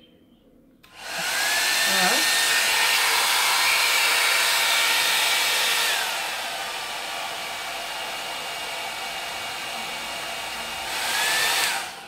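A Surker hot-air brush (hair-dryer brush) switches on about a second in and blows loudly with a steady motor whine. About six seconds in it drops to a quieter, lower setting, steps back up near the end and cuts off, its whine gliding in pitch at each change as it is switched between its airflow settings.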